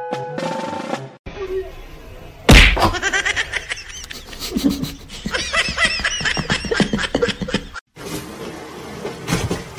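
A short stretch of music, then a loud smack about two and a half seconds in, followed by a person laughing in quick repeated bursts for several seconds.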